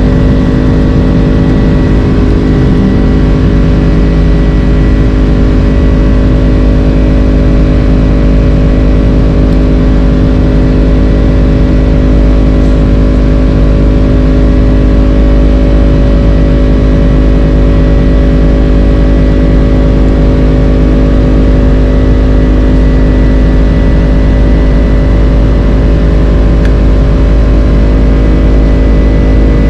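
Steady drone of a Boeing 767-300's General Electric CF6 engines and airflow, heard inside the cabin. A deep rumble carries several steady hum tones that hold constant pitch throughout, with no change in engine power.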